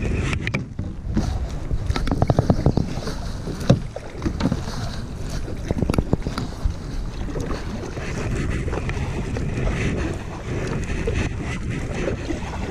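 Knocks and rattles of fishing gear being handled against a fishing kayak's hull, the loudest knock about four seconds in, then water splashing along the kayak's side with wind buffeting the microphone.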